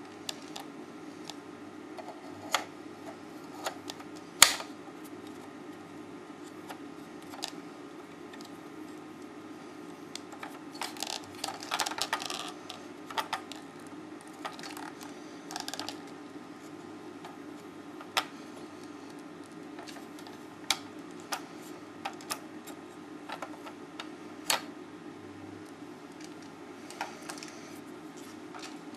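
Scattered sharp clicks and taps of hard parts being handled and snapped together while a mount is fitted, with a short run of clattering about halfway through, over a steady low hum.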